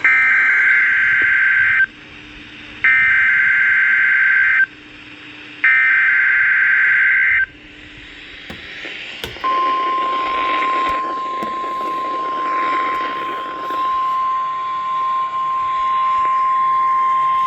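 NOAA Weather Radio Emergency Alert System activation, heralding a special marine warning. Three bursts of SAME header data, a harsh two-tone warbling screech about two seconds each with short gaps between them, are followed about halfway through by the steady 1050 Hz warning alarm tone, with radio hiss behind it.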